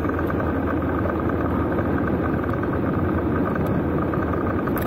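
Onboard sound of a Honda Africa Twin adventure motorcycle riding a gravel dirt road: the parallel-twin engine runs steadily at cruising speed, mixed with wind rush over the camera.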